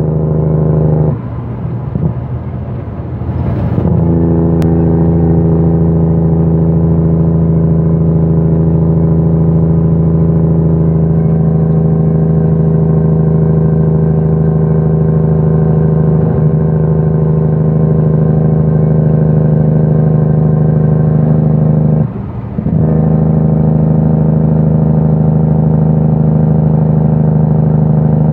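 Semi-truck diesel engine heard from inside the cab, pulling with a steady, loud drone. The engine note drops away twice, for a couple of seconds starting about a second in and briefly about three quarters of the way through, as the driver shifts gears.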